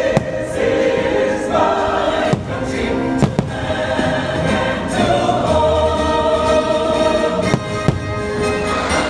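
A choir singing a patriotic song with musical backing, with several sharp firework bangs going off over it.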